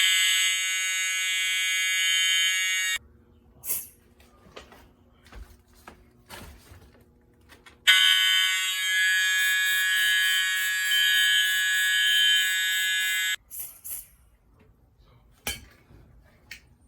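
Fire alarm horn sounding a steady, loud tone in two bursts: about three seconds, then after a pause of about five seconds, about five and a half seconds more. Faint clicks and knocks fall in the gap between the bursts.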